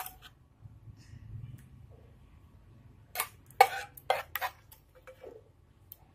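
A spoon scraping and knocking against a nonstick frying pan as curry is served out into a bowl, with four sharp clinks close together just past the middle and a few lighter taps around them.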